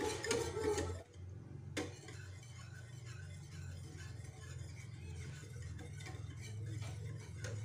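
A wire whisk stirring a thin chocolate agar-agar mixture in a pot, with faint clinks against the pot, over a steady low hum. Background music plays for about the first second, then stops.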